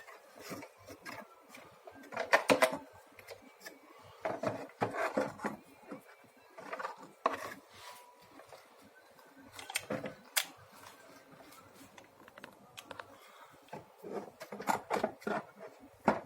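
Vacuum cleaner motor and housing being handled and fitted back together: irregular knocks, clicks and scraping, heaviest about two, five and ten seconds in.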